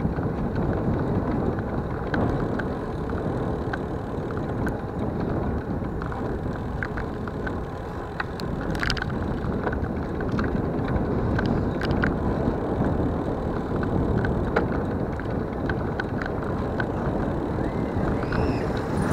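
Steady wind and road noise from a ride along a paved road, with scattered small clicks and rattles.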